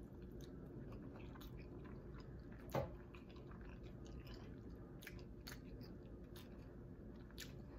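A person chewing a mouthful of soft flour-tortilla street taco, faint wet mouth sounds with scattered small clicks and one louder click about three seconds in.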